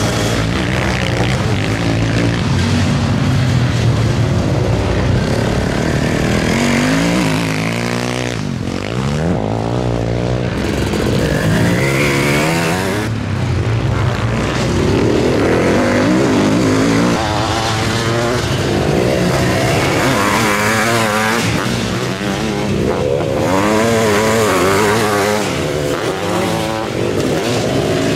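Several sidecarcross racing outfits' engines revving hard, the pitch climbing and dropping again and again as they accelerate, shift and back off around the motocross track. More than one engine is heard at once.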